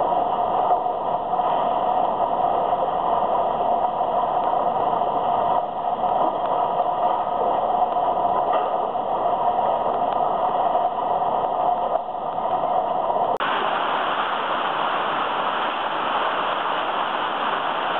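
Steady running noise of a single-stream recycling sorting line: conveyor belts and their electric drive motors running. About 13 seconds in, the sound changes suddenly to a brighter, even rushing clatter of mixed recyclables tumbling along an inclined conveyor.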